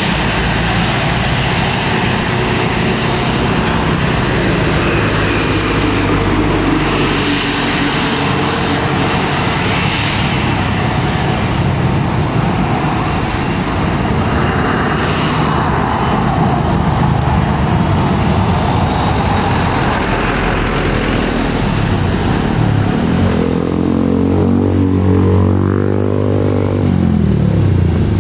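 Airliner's jet engines giving a loud, steady roar during take-off. A few seconds before the end, an engine tone falls in pitch as something passes close by.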